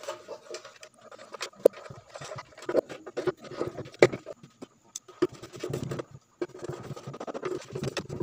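Hands fitting a loudspeaker driver into a plastic speaker housing: irregular clicks, knocks and scraping of plastic and metal parts, with sharper knocks about two seconds in and again about four seconds in.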